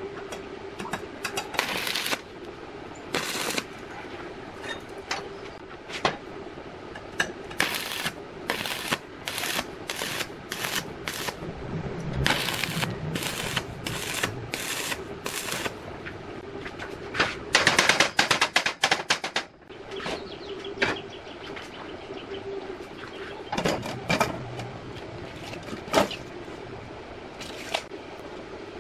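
Stick welding: the arc striking and crackling in a string of short bursts as tack welds go onto steel square tubing, with one longer, louder run of crackle a little past the middle. A steady hum lies underneath.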